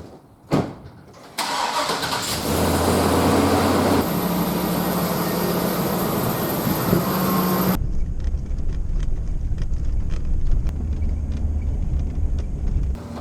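A vehicle engine starts with a sudden loud onset after a sharp click, then runs steadily. About eight seconds in, the sound changes abruptly to a heavier low rumble.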